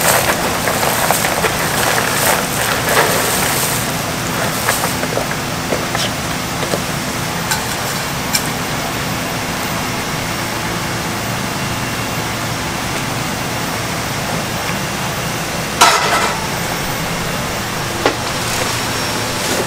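Large pot of anchovy broth at a rolling boil, a steady bubbling hiss. At the start, dried anchovies are poured in from a cardboard box with a rustling clatter, and a sharp knock sounds about sixteen seconds in.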